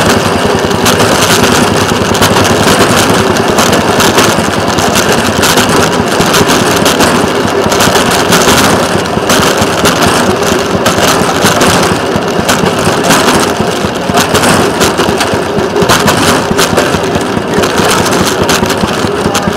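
Rail motorcar (speeder) under way on the track: its engine runs loud and steady with a dense, fast rattle.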